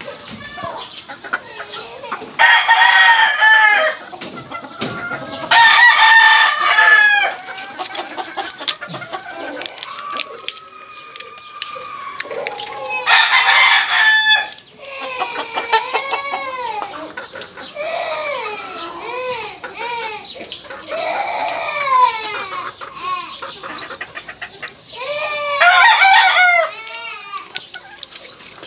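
Gamefowl roosters crowing four times, each crow about a second and a half long, with chickens clucking in between.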